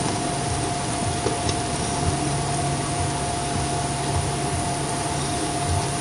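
Domestic cat purring close to the microphone, low and steady, under a loud even hiss and a faint constant whine from a low-quality recording.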